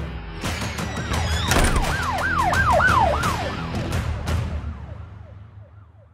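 Police-style siren sound effect: a fast repeated falling wail, about three sweeps a second, fading out over the last couple of seconds.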